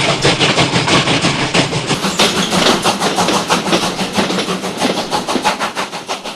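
Steam train running with an even, fast rhythm of about four to five beats a second, growing fainter over the last couple of seconds.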